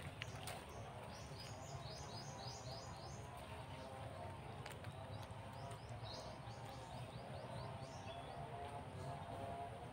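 A small bird chirping in quick runs of short high notes, a few runs of about eight notes each, over a steady low outdoor rumble, with a few faint sharp clicks.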